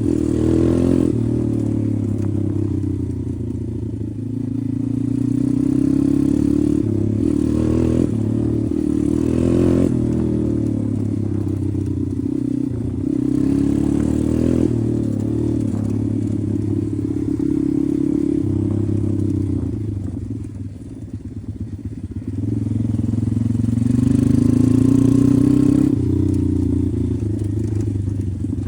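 Pit bike engine running under way, its revs rising and falling with the throttle. It eases off about twenty seconds in, then pulls up again.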